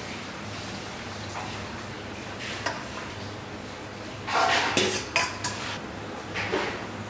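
Metal slotted skimmer clanking and scraping against a stainless steel bowl and a steel kazan. There are a few clanks with a short metallic ring, the loudest a little past halfway, over a steady low hum.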